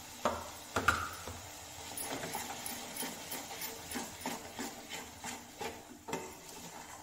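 Steel spatula knocking and scraping against an aluminium kadhai as a masala is stirred and fried: a run of light clacks, about two or three a second, with two louder clinks in the first second.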